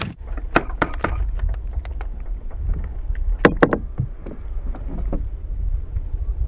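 Clear plastic canopy being pried off an RC boat hull: scattered clicks and crackles, the loudest about three and a half seconds in, over wind rumbling on the microphone.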